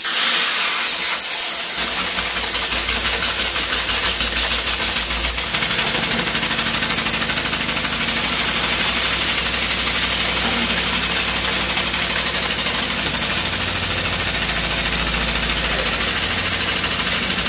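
Homemade steam engine with a syringe cylinder running on steam, its grinding-disc flywheel spinning, a fast steady chuffing mixed with loud hissing of escaping steam.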